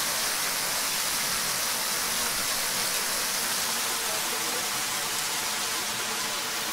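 Steady rush of a waterfall: an even hiss of falling water that does not change.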